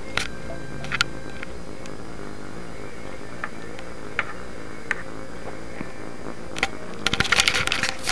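A cat pawing and biting at a grooming brush: scattered light taps and clicks, then a quick run of scratchy clicking and rustling near the end.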